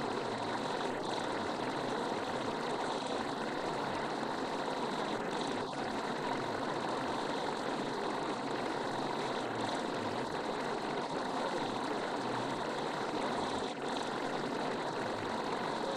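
A steady, unchanging rushing noise, like white noise or running water, with no rise or fall in level.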